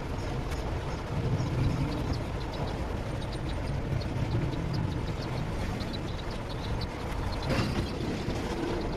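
Steady low background rumble with faint light ticking, and a brief scraping noise near the end.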